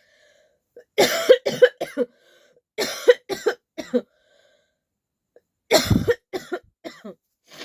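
A person coughing in three bouts of several quick, hacking coughs each, with short pauses between bouts; the last bout is the loudest and deepest.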